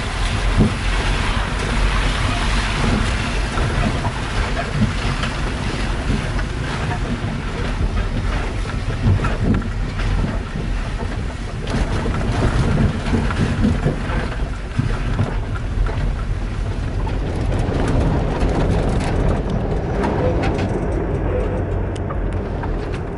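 Vehicle engine and tyres running over a rough, muddy dirt road, heard from inside the cab: a steady low rumble with frequent knocks and rattles from the bumps.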